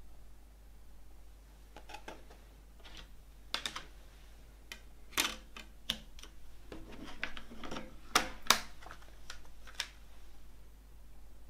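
Plastic CD jewel case being handled: a disc pressed down onto the case's centre hub and the case shut, giving a run of sharp plastic clicks and clacks with soft rubbing between them. The loudest are two quick clacks about eight seconds in.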